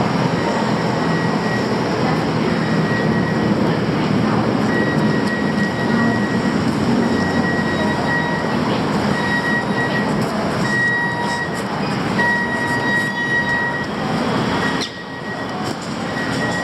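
Loud, steady rumbling noise of heavy vehicles, with a thin high whine coming and going; the noise drops away suddenly about fifteen seconds in.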